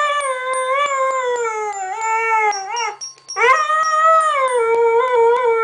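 Dog howling along to the chimes of a toy xylophone-piano: two long howls, the first sliding down in pitch and ending about three seconds in, the second starting half a second later. Tinkling toy-piano notes ring underneath.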